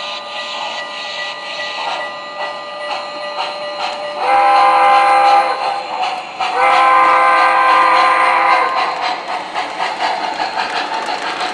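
Sound system of an MTH Premier Pennsylvania Railroad G-5s 4-6-0 O-scale model steam locomotive playing rhythmic steam chuffing as the train runs. A multi-tone steam whistle sounds twice: a short blast about four seconds in and a longer one about six and a half seconds in.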